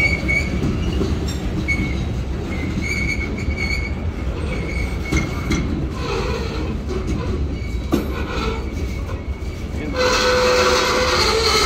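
Freight cars rolling past with a steady low rumble of wheels on rail and thin, high-pitched wheel squeals coming and going in the first few seconds. About ten seconds in, the sound gets louder and a steady tone comes in over the rumble.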